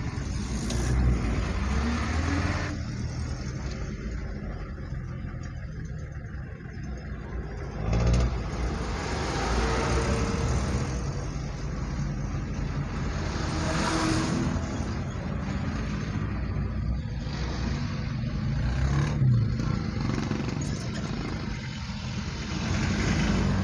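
Road traffic heard from a moving car: a steady engine and road rumble, with louder swells about 8 and 14 seconds in as nearby vehicles pass.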